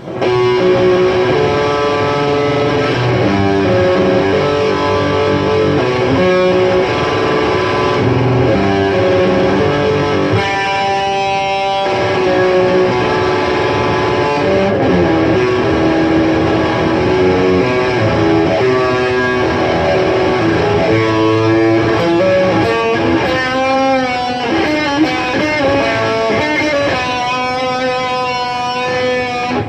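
Electric guitar playing a melodic line without pause, with held notes wavering in pitch in vibrato and bends around the middle and again near the end.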